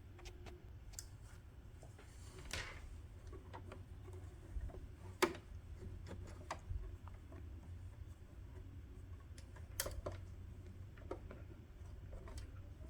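Quiet handling sounds at a home sewing machine: a few scattered faint clicks, two sharper ones about five and ten seconds in, and a brief rustle of fabric about two and a half seconds in. The machine is not running.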